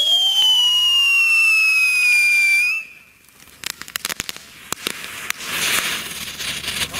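A firework whistle falling slowly in pitch for about three seconds, then cutting off. From about three and a half seconds in come irregular sharp pops and crackles that grow denser: a silver strobe fountain burning, its strobe composition popping as it flashes.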